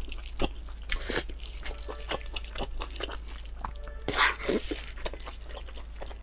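Close-miked eating sounds of biting into and chewing Chinese blood sausage: many quick wet mouth clicks and smacks, with louder bites about a second in and about four seconds in, over a steady low hum.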